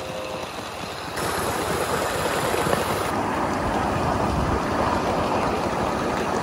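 1-inch-scale live steam Pacific locomotive running along its track: a steady rushing noise, with no distinct tone, that steps up louder about a second in.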